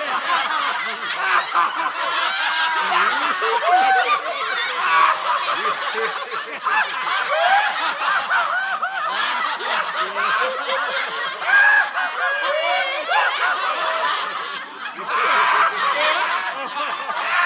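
Many people laughing and snickering at once, with overlapping voices and no let-up, like a crowd or a canned laugh track. It dips briefly near the end and then swells again.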